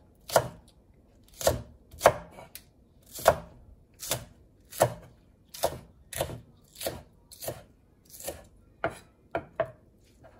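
Kitchen knife slicing a green onion on a wooden cutting board: each cut gives a short crunch and knock of the blade on the board, about two cuts a second, stopping near the end.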